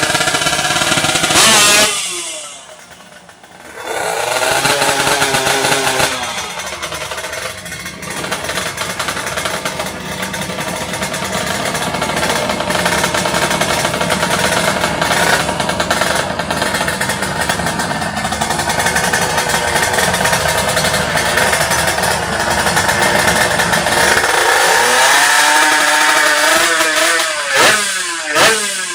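Two-stroke underbone drag bikes revving and running at full throttle. The engine noise drops briefly about two seconds in, then holds loud and steady for a long stretch. Several sharp revs near the end.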